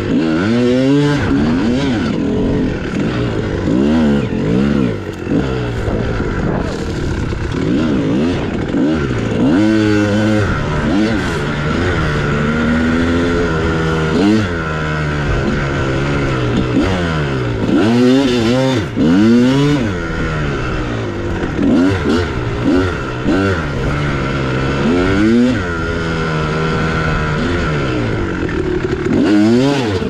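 2001 Kawasaki KX250's single-cylinder two-stroke engine being ridden hard, its pitch sweeping up and down over and over with the throttle and gear changes.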